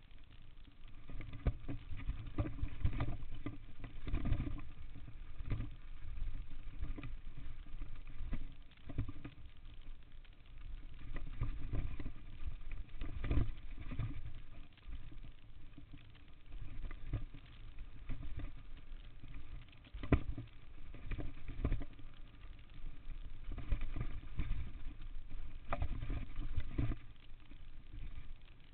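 Downhill mountain bike rolling fast down a dry dirt trail, heard from a chest-mounted camera: a steady low rumble with frequent knocks and rattles as the bike goes over bumps.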